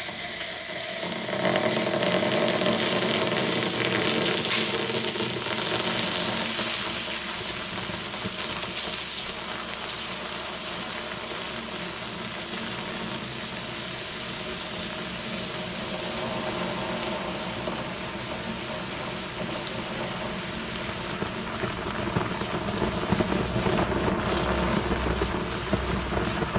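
Firecrackers fizzing and hissing as they burn under a red-hot metal cube: a steady sizzle with a sharp crack about four seconds in and scattered crackles that come more often near the end.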